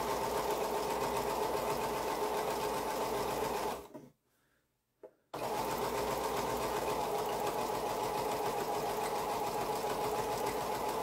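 Pfaff computerized sewing machine stitching a curved seam through two layers of fabric: it runs at a steady speed, stops a little under four seconds in for about a second and a half, then starts again and runs on.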